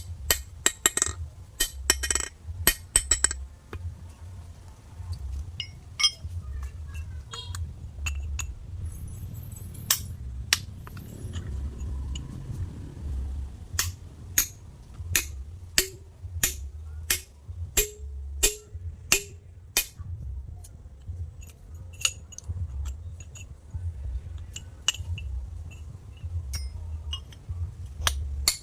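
Hand tools striking stone during stone carving: sharp metallic clinks, about two a second in a steady run through the middle and less regular elsewhere, over a constant low rumble.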